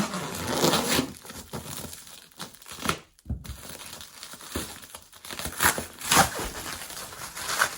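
Packaging being torn open and crumpled by hand around a pair of headlights: irregular rustling and tearing, with a brief pause about three seconds in.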